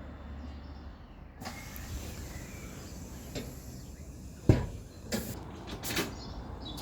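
A steady low mechanical hum, with one sharp loud knock a bit past halfway and a couple of lighter knocks after it.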